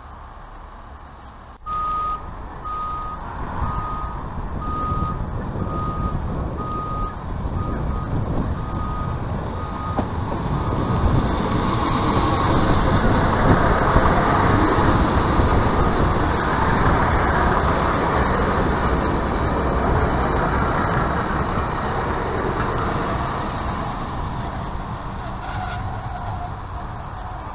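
A string of about nine short, evenly spaced beeps, roughly one a second, then a diesel multiple unit running along the platform, its rumble building to a peak and slowly fading.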